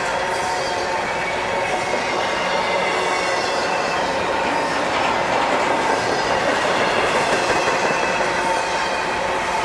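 Intermodal freight train of double-stack well cars rolling past close by: a steady rumble of steel wheels on rail, with faint steady squealing tones of the wheels over it.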